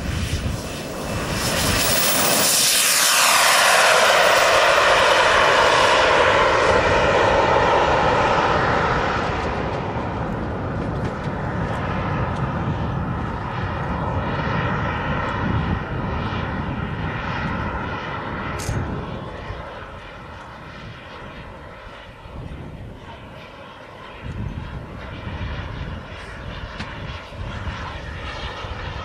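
Turbine jet engines of a large radio-controlled Concorde model on its takeoff run: a loud jet whine and rush that swells a couple of seconds in and drops in pitch as the model passes close. The sound then fades as it climbs away, dips around two-thirds of the way through and rises a little again near the end.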